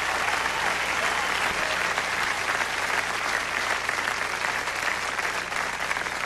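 Concert audience applauding at the end of a song, the clapping easing off slightly near the end.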